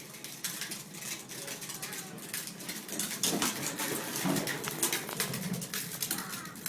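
Ride-on plastic toy car being pushed across a hard floor, its wheels and body giving an irregular clatter of small clicks and rattles.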